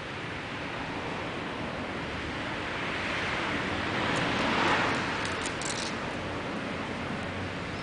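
A steady rush of background noise that swells to a peak about halfway through and then fades. Just after the peak come a few faint, crisp ticks as a rabbit nibbles and tugs at a leafy green.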